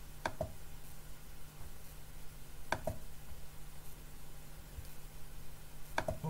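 Three computer mouse clicks, each a quick press-and-release pair, shortly after the start, about three seconds in and near the end, over a steady low hum.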